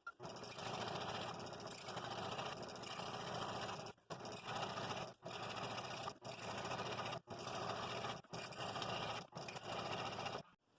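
Scroll saw with a number seven blade cutting through wood, a steady buzzing rasp of the reciprocating blade. It is broken into short stretches by brief silent gaps about once a second.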